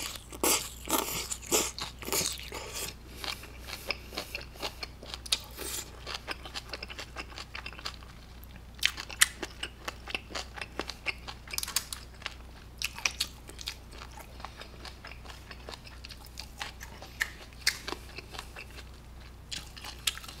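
A person eating: slurping cold noodles (naengmyeon) for about the first six seconds, then chewing with many small wet clicks and smacks.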